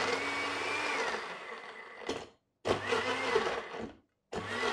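Countertop blender pulsed in short runs, breaking up ice cubes and chunks of peeled beetroot in a little water. The motor cuts out twice for a moment, about two and four seconds in, and starts again each time.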